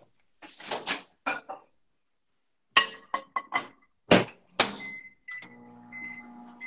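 Microwave oven being loaded and started: handling clatters and knocks as the mug goes in and the door shuts, a quick run of keypad beeps about three seconds in, then a steady running hum from about five seconds in as it begins heating a mug cake.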